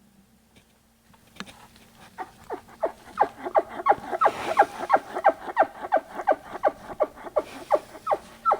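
Bull elk chuckling: a long run of about twenty short guttural calls at roughly three a second, each dropping in pitch. The calls start about a second in and grow louder over the next few seconds.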